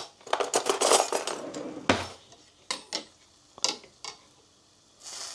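Metal cooking utensils clinking and scraping against pots and dishes: a quick flurry of clatter in the first second or so, a heavier knock about two seconds in, then a few scattered clinks.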